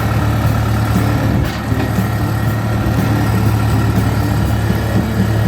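Old gear-driven chainsaw with a six-foot bar, its engine running at a steady speed.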